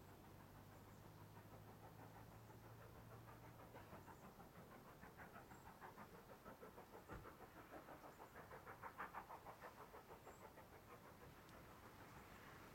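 Faint, distant steam locomotive working hard up a gradient, its exhaust chuffing in a quick even rhythm of about five beats a second. The beats grow louder towards the middle, are loudest about nine seconds in, then ease slightly.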